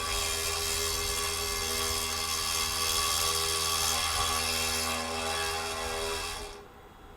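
Small 200 W router spindle of a 3040T desktop CNC mill running and cutting, a steady high whine over a hiss. About six and a half seconds in the sound drops off sharply and goes much quieter.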